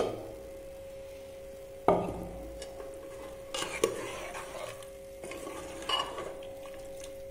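A steel ladle stirring rice and soya chunks in hot water in a pressure cooker: a sharp knock against the pot about two seconds in, then short scraping swishes twice.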